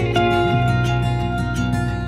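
Background music: plucked acoustic guitar playing a steady run of notes.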